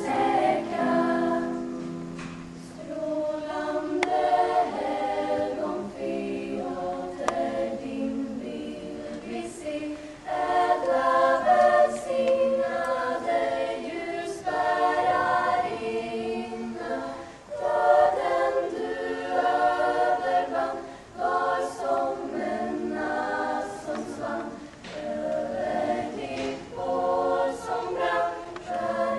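Lucia choir singing a cappella, several voices in harmony holding long notes, with brief breaks between phrases.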